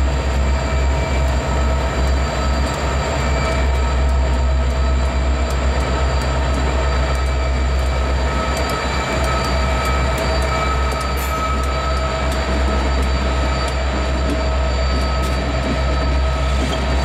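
A string of NYSW six-axle diesel locomotives passing close by: a steady deep engine rumble with a thin steady whine held over it, and light scattered clicks from the wheels.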